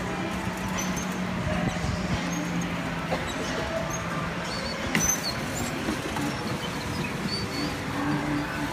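Go-kart being driven around a track: a steady motor hum and running noise, with short high squeaks scattered throughout.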